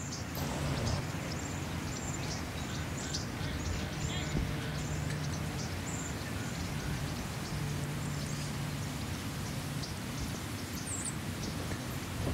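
Outdoor ambience: a steady rush of background noise with small birds chirping over it, and a low hum that swells and fades a few times.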